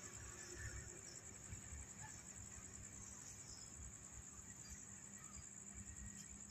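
Night insects, crickets, trilling in a steady high-pitched chorus that pulses evenly. Underneath runs a faint, steady low drone from the distant CC 201 diesel locomotive.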